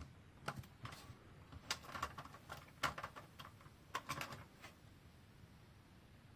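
A run of small, sharp clicks and taps from handling a CPU and the motherboard's CPU socket, spread over about four seconds, then quiet.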